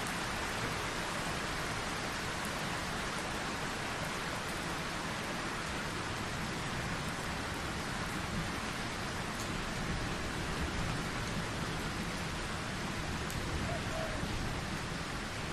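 Steady rain falling: an even hiss of rain with scattered small ticks of single drops.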